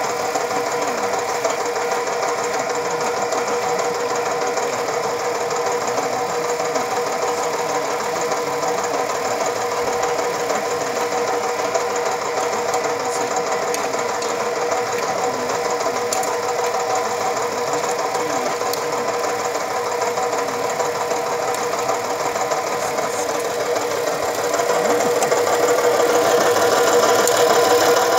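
Electric motor and rotating mesh drum of a small rotary trommel sieve running steadily while sifting compost, a constant machine hum with a held whine. It grows somewhat louder near the end.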